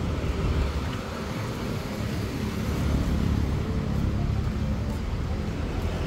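Steady rumble of street traffic, with the low end heaviest and no single event standing out.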